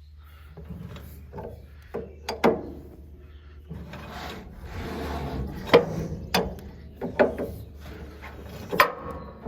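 Number 40 roller chain being handled and hooked to the old chain: scraping and rubbing with about half a dozen sharp clinks at irregular times, over a steady low hum.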